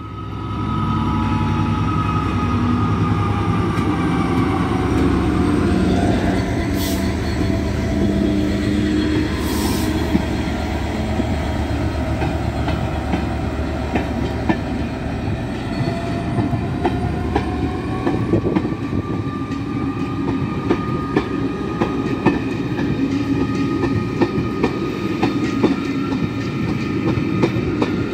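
A Class 66 diesel locomotive's EMD two-stroke V12 engine under power as it passes close by, loudest in the first few seconds. It is followed by a long rake of passenger coaches rolling past, with the steady clickety-clack of wheels over rail joints.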